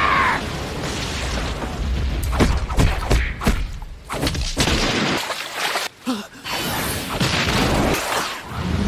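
Animated fight sound effects: a loud rushing rumble, then a quick run of punch and kick impacts and whooshes. The low rumble drops away about five seconds in, leaving scattered hits and swishes.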